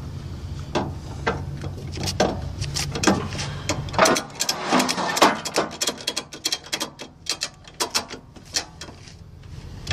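Tow dolly wheel-strap ratchet being pumped tight around a tyre: quick runs of clicks from the pawl with each stroke of the handle, coming thickest in the middle of the stretch.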